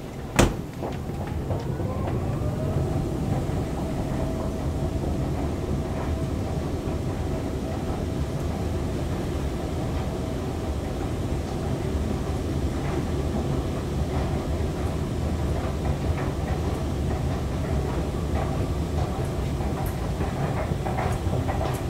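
2013 KONE escalator running while being ridden down: a steady mechanical rumble of the moving steps and drive. A sharp knock comes just as the ride begins, a faint tone rises over the first few seconds and then holds steady, and a few light clicks come near the end at the bottom landing.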